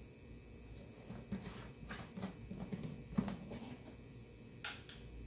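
Light plastic clicks and taps as a plastic jug's lid is taken off and handled, with one sharper click about three seconds in and another near the end.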